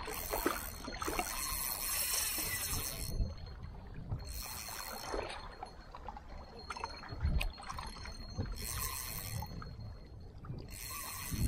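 Small sea waves washing and sloshing against shore rocks in repeated surges, each a second or two long.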